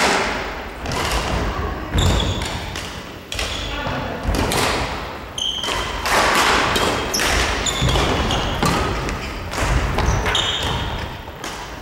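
Badminton rally: rackets striking a shuttlecock about once a second, each sharp hit echoing around the gym, with quick footwork on the wooden court between hits.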